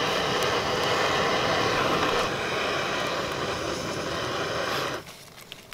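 Camp stove burner running at full flame to boil water, a loud steady rushing like a jet engine, then shut off suddenly about five seconds in.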